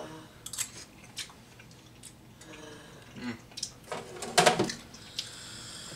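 Metal spoon clinking against the air fryer basket as pasta is stirred. About four seconds in come louder clunks as the basket is slid back into the air fryer.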